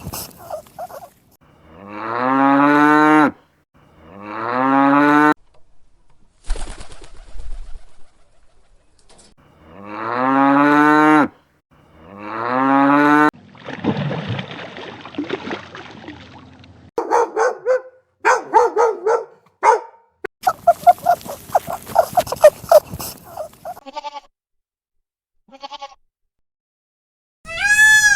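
A run of animal calls, the loudest being four long cattle moos in two pairs. Shorter pulsed calls and a stretch of rapid croaking follow later.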